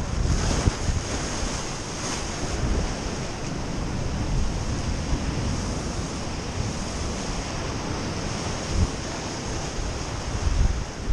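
Heavy sea surf breaking and foaming over shoreline rocks, with wind buffeting the microphone in irregular low gusts.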